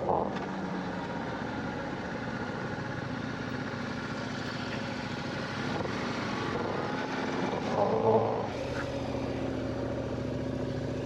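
Suzuki DR650 single-cylinder motorcycle engine running steadily while riding, its engine note shifting in pitch a couple of times. A short louder sound about eight seconds in.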